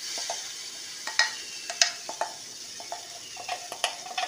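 Semolina pancake batter sizzling in ghee on a hot pan, a steady high hiss. A metal spoon clinks and scrapes against a steel bowl several times as the batter is scraped out onto the pan.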